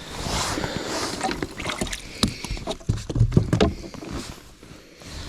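Handling noises on a bass boat while a fish is culled into the live well. A cluster of sharp knocks and clatter comes about two seconds in, then it goes quieter.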